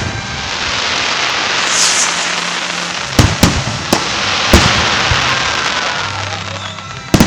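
Fireworks display: a continuous crackling hiss of bursting shells. Several sharp bangs come in a cluster about three to four and a half seconds in, and another comes near the end.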